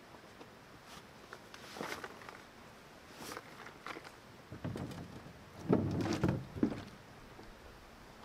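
Scattered knocks and clicks, with a cluster of louder low thumps about six seconds in.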